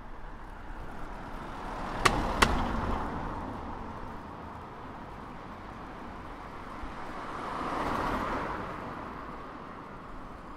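City street traffic ambience: a steady background hum of traffic, two sharp clicks about two seconds in, and a vehicle passing by that swells and fades away around eight seconds in.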